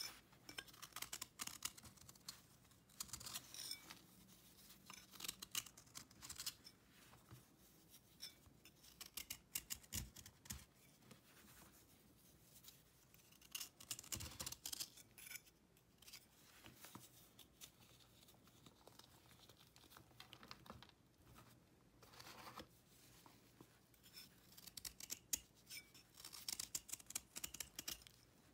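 A paring knife shaving a dried, chalky cake of cleaning paste, making quick dry scraping and crumbling strokes in bursts that thin out in the middle.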